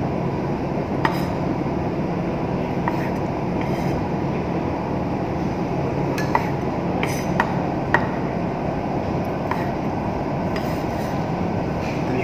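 Chef's knife halving cherry tomatoes on a wooden chopping board: irregular light knocks of the blade on the board, over a steady low hum.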